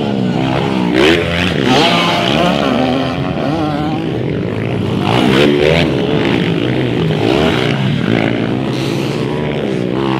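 Several motocross dirt bike engines revving hard as the bikes pass one after another, the pitch repeatedly climbing and dropping with throttle and gear changes.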